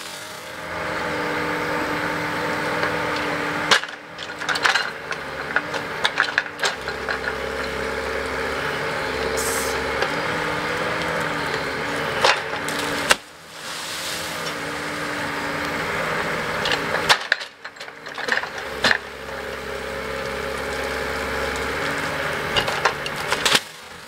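Mini excavator's diesel engine running steadily, with sharp cracks and knocks of wood as its grapple handles logs. The sound breaks off abruptly for a moment twice.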